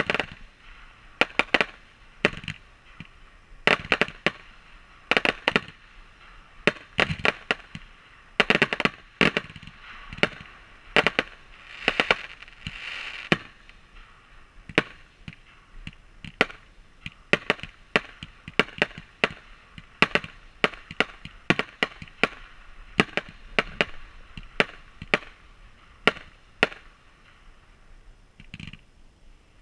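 Fireworks shells launching and bursting: a rapid, irregular string of sharp bangs that thins out over the last few seconds.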